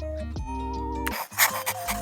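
Light background music with a steady bass line, joined about a second in by a loud scratchy writing sound effect, like a pen scratching across paper, laid over the music.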